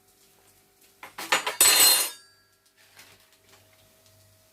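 Kitchen utensils and dishes clattering in a quick burst of metallic knocks about a second in, with a short metallic ring as it stops.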